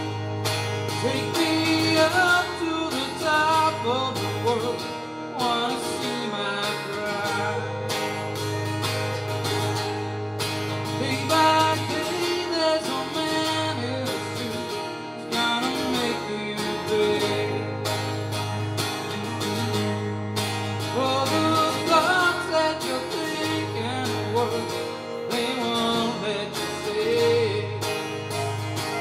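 Live music from two guitars, an electric guitar and an acoustic-electric guitar, with a man singing over them.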